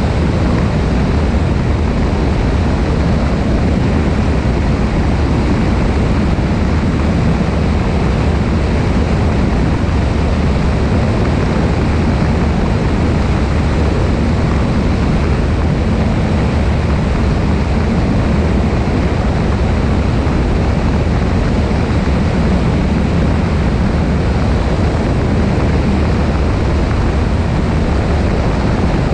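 Cessna 172 in steady cruise: a constant drone of the engine and propeller under heavy wind rush over the wing-mounted camera, with no change in pitch or level.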